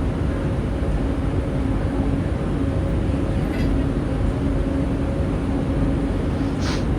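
Interior noise of a Bombardier Innovia ART 200 car: a steady rumble with a constant low hum from the train's machinery. A short hiss comes near the end.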